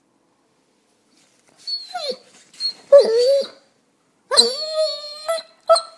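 Basset hound howling to wake its owners: four pitched calls starting about a second and a half in, the longest held for about a second.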